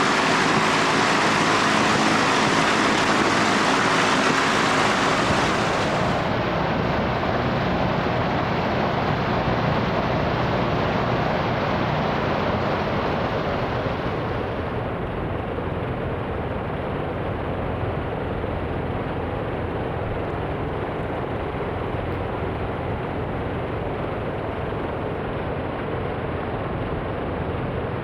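Flex-wing microlight's four-cylinder 1.4-litre petrol engine running under heavy wind rush during landing. The high hiss of the wind drops away about six seconds in and again around halfway, and the whole sound slowly quietens.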